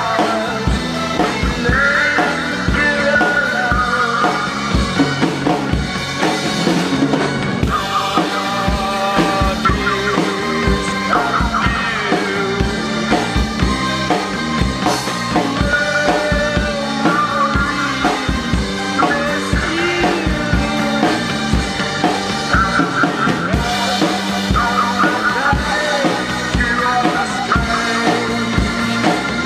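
Drum kit played steadily, with bass drum, snare and cymbals, along with a recorded song that carries pitched melodic parts.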